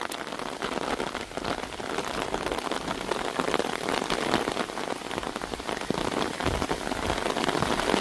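Heavy rain falling, a dense steady patter of drops striking an umbrella close to the microphone.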